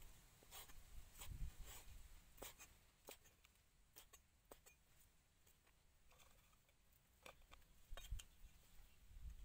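Faint, irregular taps and light knocks of a cleaver slicing squid on a wooden chopping board, a little louder near the end.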